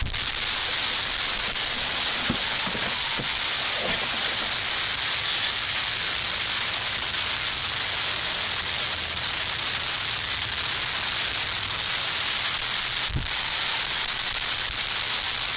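Homemade alcohol stoves burning with a steady hiss under cups of water, with one sharp click about thirteen seconds in.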